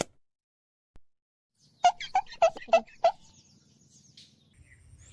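A bird calling: a quick run of about six short chirping notes, repeated several times a second.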